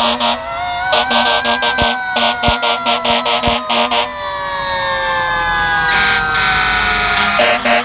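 Fire truck sirens wailing, their pitch gliding slowly downward, over fast, evenly pulsed blasts of a warning horn through the first half, with another burst of pulses near the end.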